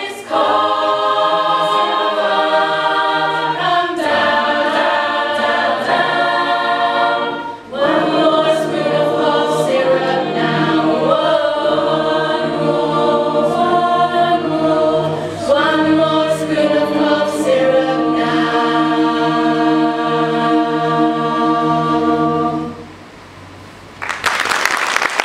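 A vocal group sings in harmony and ends on a long held chord. After a brief lull, the audience begins applauding near the end.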